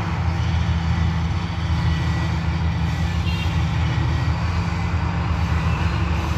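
Steady low drone of an approaching EMD GT-series AC diesel-electric locomotive's engine.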